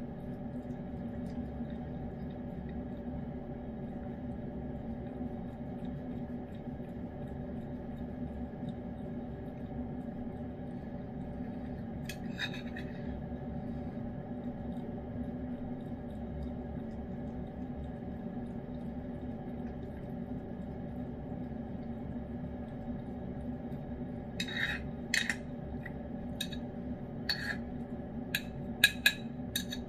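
A spoon clinking and scraping against a ceramic dish: once about twelve seconds in, then a quick run of sharp clinks over the last five seconds. A steady low hum lies under it.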